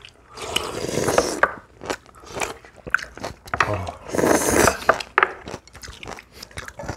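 People eating at a table: two long slurps, one about half a second in and another around four seconds, as broth and strands from a spicy blue crab stew are drawn in from chopsticks and a soup bowl, with chewing and short clicks of chopsticks on ceramic dishes between them.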